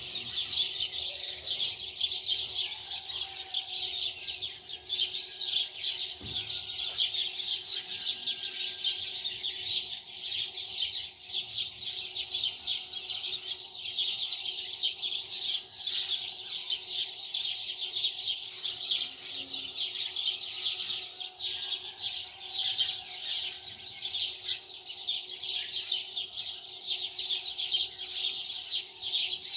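Many small birds chirping continuously in a dense chorus, with a faint steady hum beneath.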